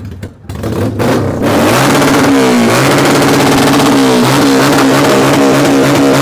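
Two motorcycles blasting sound head to head in a loudness contest. The sound builds about a second in to a loud, sustained blare with steady pitched tones and some rises and falls in pitch.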